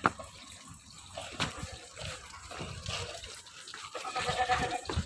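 Goats moving about, with scattered clicks and knocks and a goat bleating briefly near the end.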